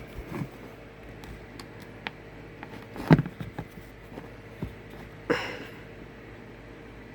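Lasko B20200 box fan running on low, a steady faint hum, with scattered clicks and knocks of handling over it, the loudest about three seconds in and another just after five seconds.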